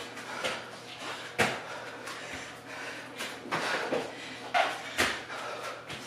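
Burpees on an exercise mat over a wooden floor: a few irregular thumps as the hands and feet land and push off.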